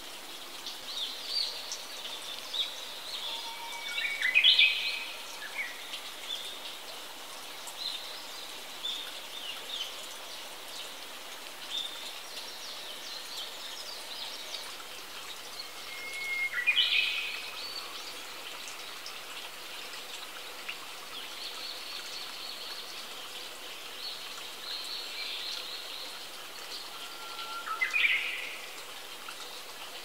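A small bird bathes in a shallow stream, its splashing a faint patter of drips and flicks over the trickle of water. A songbird sings three times, about twelve seconds apart, each phrase a held note that breaks into a quick higher flourish.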